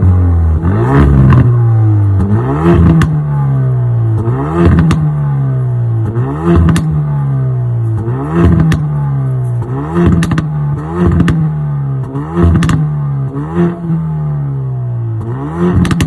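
Hyundai i30 N's 2.0-litre turbocharged four-cylinder engine through its stock exhaust, revved about ten times in a row. Each blip rises quickly and falls back, with sharp pops and crackles from the exhaust as the revs drop.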